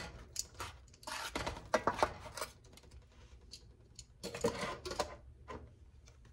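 Metal kitchen tongs clicking and scraping against a stainless steel baking pan as raw pork chops are turned over. The clatter comes in irregular clusters, with another burst about four seconds in.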